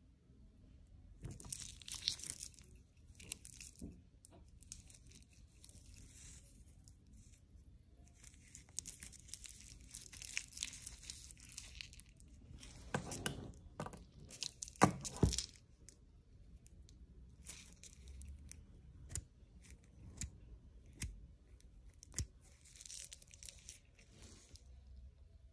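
Cloth gloves rustling and rubbing against a Rolex GMT-Master II 116710BLNR's stainless-steel Oyster bracelet as the watch is handled, in repeated bursts, with small sharp clicks of the metal links and clasp scattered through. The loudest handling comes about halfway through.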